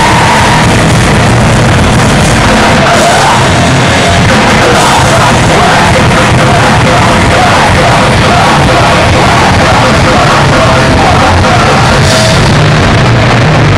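Grindcore band playing live: drum kit, distorted electric guitar and yelled vocals, very loud and unbroken.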